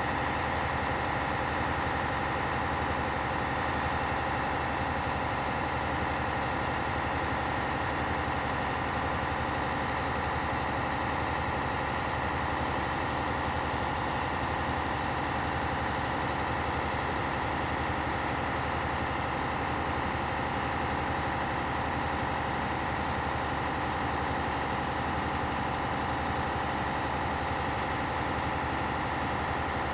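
Scania P113HL fire truck's six-cylinder diesel engine running steadily, with a steady whine over it.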